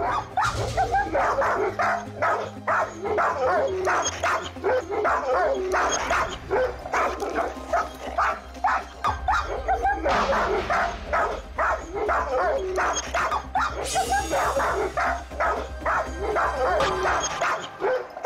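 Dogs barking aggressively and without let-up, about three to four barks a second, over background music.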